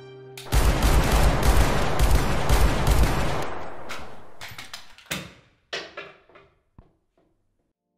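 Volley of rapid handgun fire from several semi-automatic pistols: a dense run of overlapping shots for about three seconds, starting half a second in. It thins out into a few scattered single shots and dies away.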